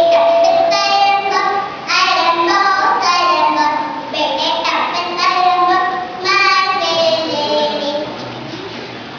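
A young girl singing solo into a handheld microphone, holding some notes; her singing stops near the end.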